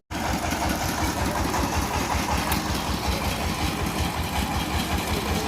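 Engine of a road construction machine running steadily near idle, with an even low pulsing.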